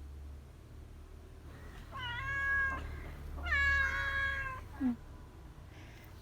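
A cat meowing: two drawn-out meows, the second one longer.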